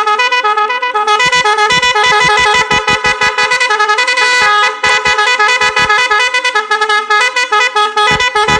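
Snail-shaped electric melody horn ('còi ngân') sounding continuously and very loud, playing a warbling tune that hops quickly between a few notes.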